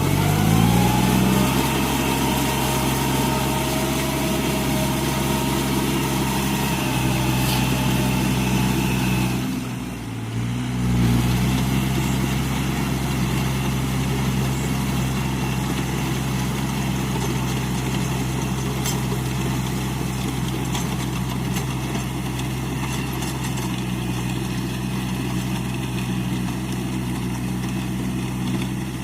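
Iseki NT540 tractor's diesel engine running steadily after rising in pitch over the first second. Its sound drops and breaks briefly about ten seconds in, then settles back to the same steady pitch.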